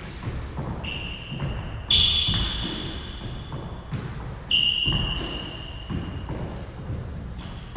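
Footsteps thudding and sneakers squeaking on a hardwood squash court as a player lunges to the corners and pushes back to the T. Three high squeaks stand out, a quieter one about a second in and loud ones about two and four and a half seconds in, each fading slowly in the hall.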